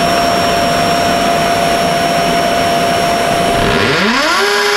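Vacuum cleaner running steadily while a small electric drill bores pilot holes into brick with a masonry bit. Near the end a motor whine drops away and climbs back up to a steady, lower pitch as the drill starts again.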